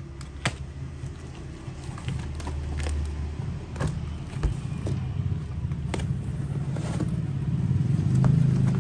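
A cardboard shipping box is being slit open and its flaps pulled back, with a few sharp cardboard clicks and crackles. Under it runs a low, steady rumble that grows louder near the end.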